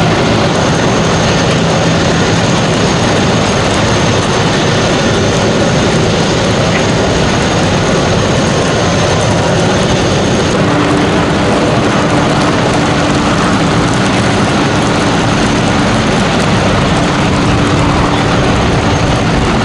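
Aircraft engines running loudly and steadily, a dense roar with a faint high turbine whine; the tone mix shifts about halfway through.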